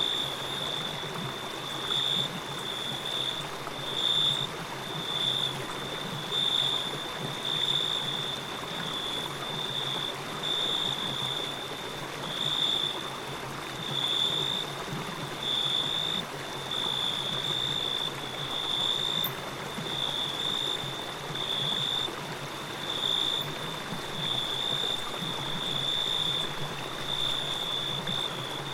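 Stream water flowing steadily, with a thin high-pitched tone running over it that pulses about once a second.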